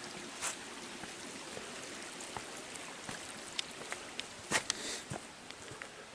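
Shallow creek trickling over rocks, with a hiker's footsteps crunching on gravel and dirt as he crosses and walks up the trail; the loudest step falls about four and a half seconds in.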